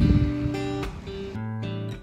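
Background music played on acoustic guitar, with a loud chord right at the start and cleaner single notes near the end.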